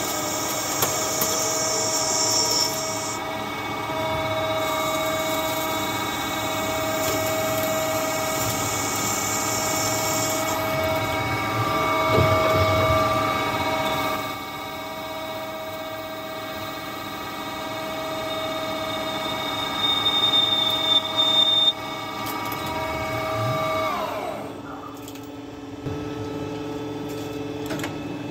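CNC lathe turning heat-treated hardened steel: the spindle runs with a steady multi-tone whine, with a high hiss from the cut for the first ten seconds or so. Near the end the spindle winds down, its pitch falling away to a quieter low hum.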